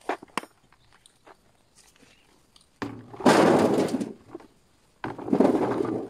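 A few quick knocks as potatoes are dropped into a bucket, then twice a heavy rattling rush of potatoes tumbling out of the bucket into a metal wheelbarrow tray, each pour lasting about a second, the second starting near the end.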